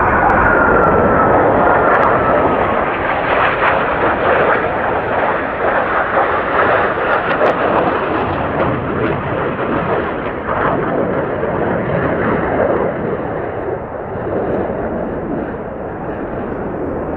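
Jet engine roar from a four-ship formation of KAI T-50B jets, each with a single turbofan, flying past overhead. A whine drops in pitch over the first second or two, and the roar slowly fades toward the end.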